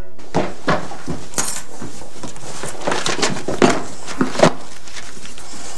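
Kitchen clatter: dishes and utensils knocking and clinking at irregular intervals, with two sharper knocks about three and a half and four and a half seconds in.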